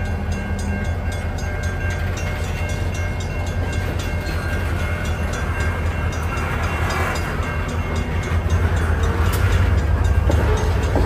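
Diesel locomotives of a CN switching job, an EMD GP40-2LW and GP38-2W, running with a steady low rumble that grows a little louder over the last few seconds.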